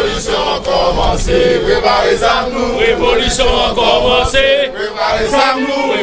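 A group of men singing a chant together, many voices overlapping in a sustained, wavering group song.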